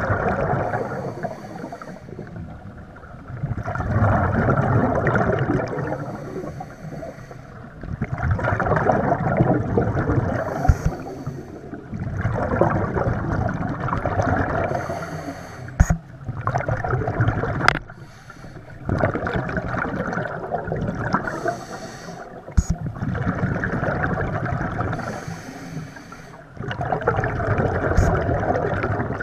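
A scuba diver breathing through a regulator underwater: a rush of exhaled bubbles about every four seconds, with quieter inhales between. A few sharp clicks stand out.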